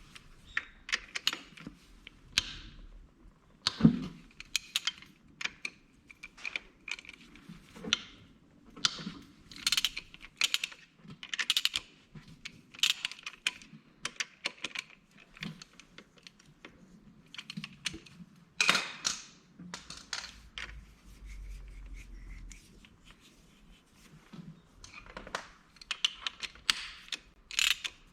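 Irregular metallic clicks and clinks of hand tools and small engine parts being handled, with a sharper knock about four seconds in.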